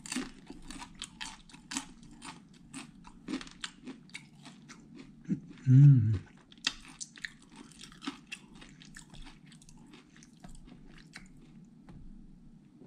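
A person chewing and crunching crisp fried food close to the microphone, with quick crunches that thin out after about seven seconds. Near the middle there is a short hummed 'mm' from the eater.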